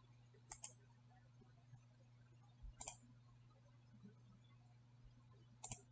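Faint computer mouse clicks, a few short pairs about two to three seconds apart, over a faint low steady hum.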